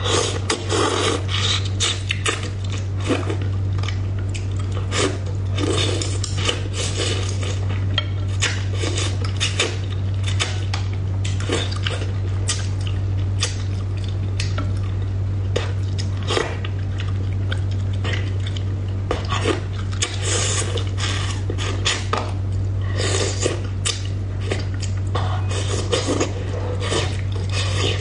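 Close-up eating sounds: wooden chopsticks clicking and scraping against the bowls, with the wet chewing of mouthfuls of braised bighead carp head. A steady low hum runs underneath.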